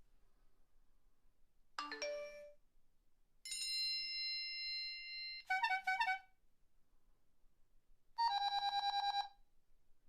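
A series of electronic ringtone-style tones: a short chime, then a held chord, two quick trilled bursts, and a trilling ring about a second long near the end.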